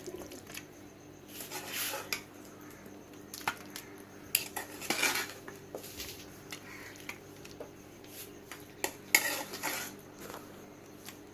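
A serving spoon scraping and clinking against a pan as cooked dry chicken fry is scooped out onto a plate: scattered sharp clicks and three longer scrapes a few seconds apart.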